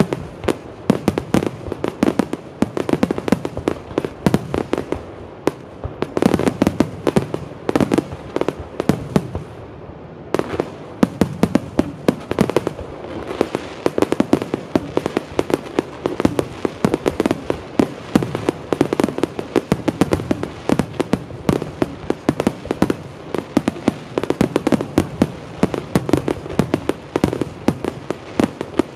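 Grand finale of a large pyrotechnic display: a continuous, dense barrage of firework shell bursts, many bangs a second. The barrage thins briefly about ten seconds in, then picks up again.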